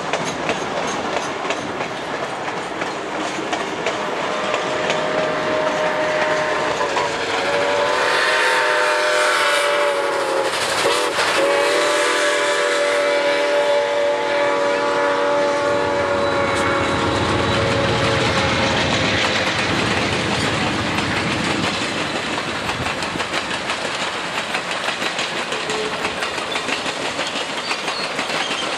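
Model train running on the track with steady rattling and clicking of its wheels. From about five seconds in, the locomotive sounds a long multi-tone signal lasting some fifteen seconds, dipping briefly about halfway through.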